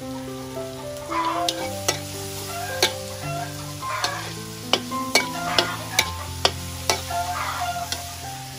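Metal spatula stirring and scraping meat in a steel wok, knocking sharply against the pan about ten times, over the sizzle of frying.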